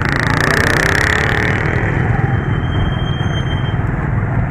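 Motorcycle engine running steadily under way, heard from the rider's seat along with road noise.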